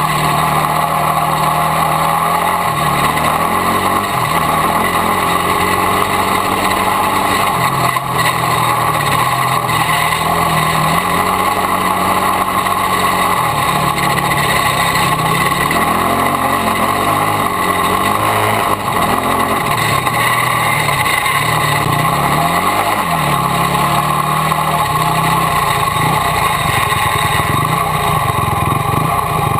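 Yamaha YFZ450 quad's single-cylinder four-stroke engine running while ridden, its pitch rising and falling again and again with the throttle, heard loud and close from a camera bolted to the front of the quad. A steady noise from the mount and the wind is heard throughout.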